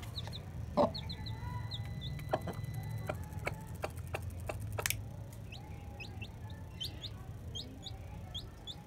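A chick peeping over and over in short, high, rising cheeps, while a hen gives a few low clucks in the first half, the loudest about a second in. A steady low hum runs underneath.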